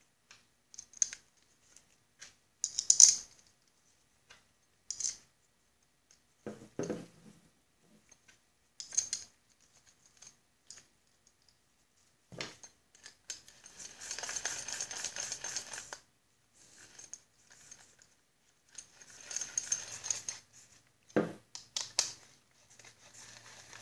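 Small metal parts and hand tools handled on a workbench: scattered clinks and taps of nuts, a socket and a nut driver against a lawn-mower drive disc. There are two stretches of rapid fine clicking, one in the middle and one near the end.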